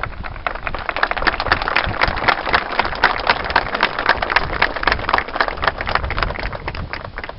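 A crowd applauding: dense clapping that builds up about a second in and thins out near the end.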